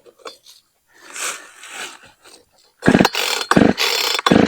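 Husqvarna 460 Rancher chainsaw's two-stroke engine being started on full choke. After some faint handling noise it pops off about three seconds in, firing in loud sputtering bursts: the first firing that tells the operator to push the choke in.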